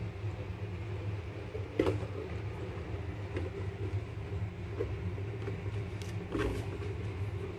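Steady low mechanical hum, with two brief knocks about two seconds in and again about six seconds in.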